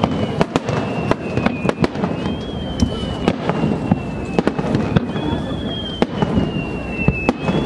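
Aerial firework shells bursting in quick succession: many sharp bangs and crackles over a low rumble. A high whistle slides slowly down in pitch three times.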